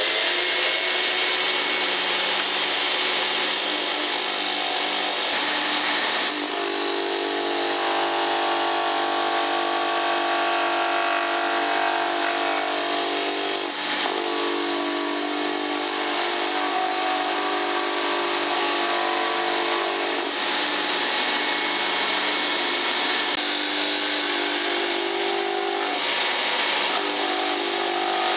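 Homemade disc sander, a 1.6 hp electric lawn mower motor driving a plywood sanding disc, running steadily at full speed. Pine workpieces are pressed against the spinning disc and sanded, adding a sanding hiss over the motor's whine.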